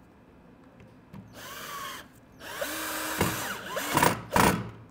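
Power drill driving a screw into wood: a short run, then a longer, louder run whose motor pitch rises and falls, ending with two sharp knocks near the end.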